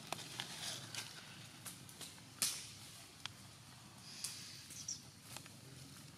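Scattered crackles and rustles of dry leaf litter and twigs, with the sharpest crack about two and a half seconds in.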